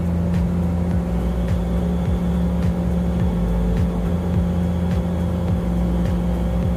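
Background music with a steady bass beat, about two thumps a second, over a continuous low hum.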